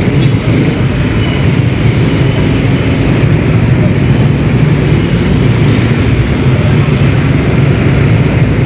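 Dense traffic of motor scooters and cars passing close by: a steady, loud drone of many small engines.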